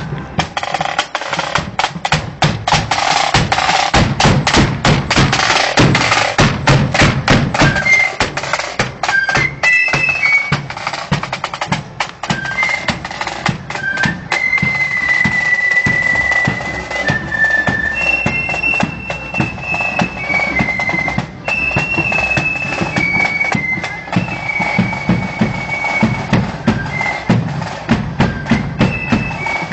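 Marching flute band playing: snare drums rattle over a bass drum beat, and about nine seconds in the flutes come in with a tune over the drums.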